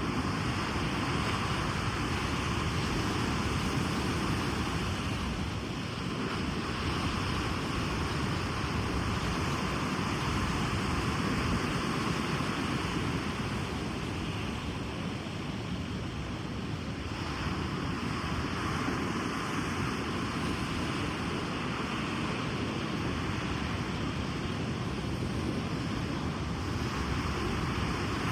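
Ocean waves breaking and washing up a beach, a steady surf hiss that swells and eases slowly, with some wind on the microphone.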